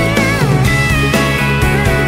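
Instrumental break of a country song: electric guitar playing bending notes over bass and a steady drum beat.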